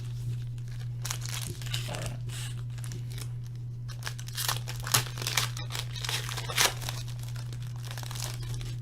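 Trading-card packaging being torn and crinkled open by hand: irregular rustling with sharp crackles that grow busier and louder about halfway through, over a steady low electrical hum.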